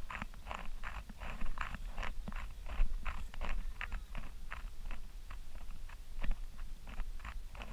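Footsteps walking through grass and on a soft dirt track, an evenly paced swishing crunch over a low steady rumble.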